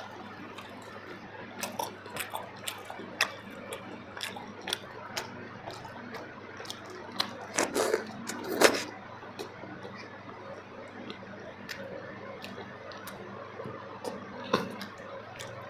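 Close-miked eating: chewing with wet mouth clicks and smacks, scattered irregularly, a few louder ones about eight seconds in.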